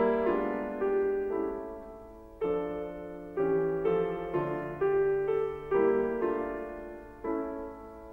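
Slow, gentle piano music: notes and chords struck one after another, each ringing and fading before the next, with a brief pause after the first second or so.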